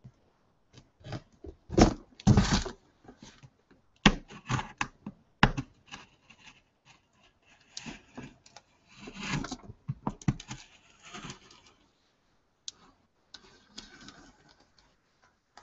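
Cardboard shipping box being handled and opened by hand: irregular scraping, rustling and knocking against the cardboard, with a few louder thumps in the first few seconds and a brief lull near the end.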